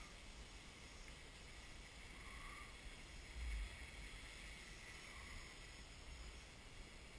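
Faint, steady hum of a small quadcopter's motors and propellers hovering in place, under low wind rumble on the microphone. A brief low thump comes about three and a half seconds in.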